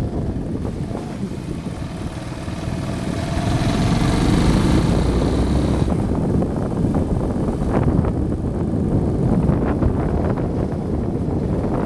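Suzuki Djebel 200's single-cylinder engine running as the bike is ridden, its pitch rising about two seconds in as it speeds up and growing louder.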